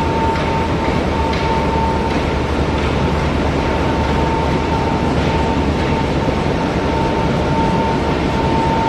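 Ball mill running on a test: a steady, dense rumble of the rotating drum with its charge tumbling, a constant whine held at one pitch, and faint irregular clatter over it.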